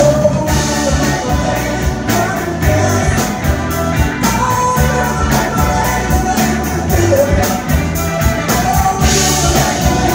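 Live soul band playing with a steady drum beat and electric guitar, the singer belting over it.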